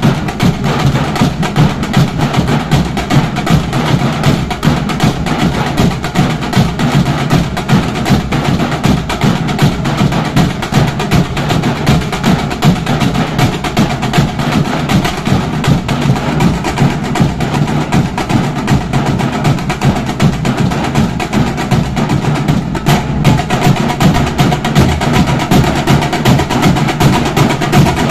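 A troupe of drummers beating strapped-on drums with sticks in unison: a loud, fast, steady rhythm of dense strokes with regular heavier accents, never pausing.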